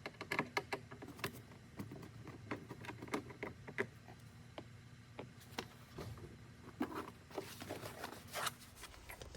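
Scattered light clicks and short scrapes of a screwdriver and hands working out the screws holding a car's interior door panel, with no steady rhythm.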